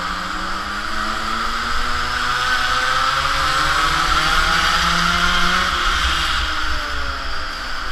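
Small two-stroke mini moto engine heard from on board, running hard at high revs with a buzzing note. It slowly climbs in pitch, drops back about six seconds in as it slows for a corner, then picks up again.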